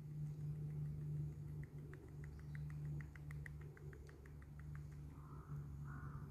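A steady low hum, with an evenly spaced run of short high ticks through the middle and two short calls near the end like a crow cawing.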